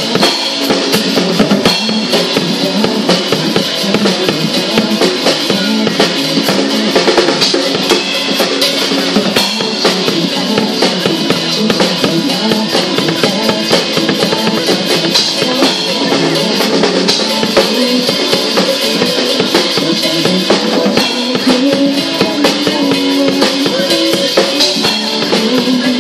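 Drum kit played along with a pop song's backing track in an instrumental passage: a steady beat of bass drum and snare hits over the band's guitar and bass.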